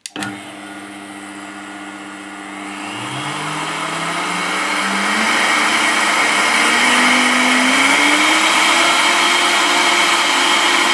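Vitamix Professional Series blender switched on with a click, its motor speeding up and rising in pitch over several seconds, then running steady and loud as it whirls a dry mix of sugar, cornstarch and cocoa powder.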